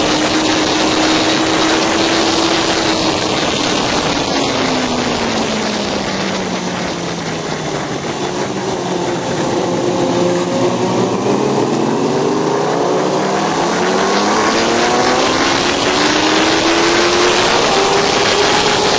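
Racing motorcycle engine heard from the bike itself under heavy wind rush. Its pitch drops slowly to its lowest about halfway through as the bike slows and leans through a long corner, then climbs steadily as it accelerates out onto a straight.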